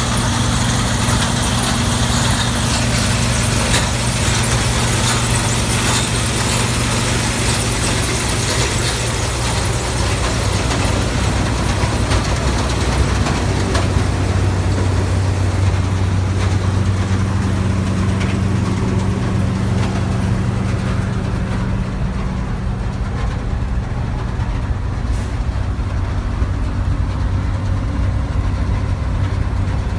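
New Holland TX68 combine harvester's six-cylinder diesel engine running steadily under a broad mechanical hiss. The hiss fades about halfway through as the engine note shifts slightly lower.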